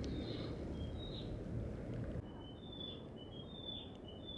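Small forest birds calling: short, high whistled notes repeated every second or so, over a low steady background noise that drops a little about two seconds in.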